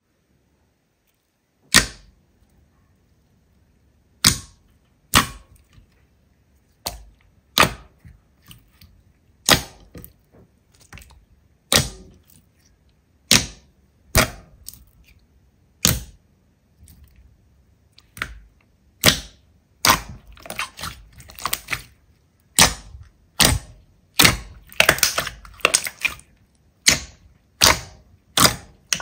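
Crunchy slime being pressed and squeezed by hand, giving sharp crackling pops about once a second. After about twenty seconds the pops come faster and in clusters.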